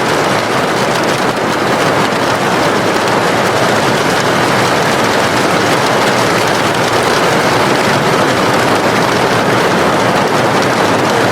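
Heavy rain falling, a steady, unbroken hiss of drops on surfaces.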